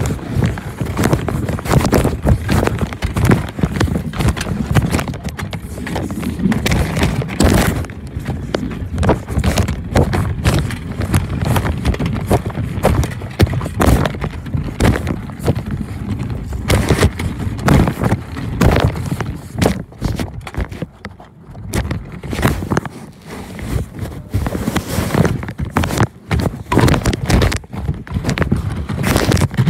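Handling noise: the microphone covered and rubbed by cloth, with a dense, irregular clatter of knocks and rustling that eases off briefly about two-thirds of the way through.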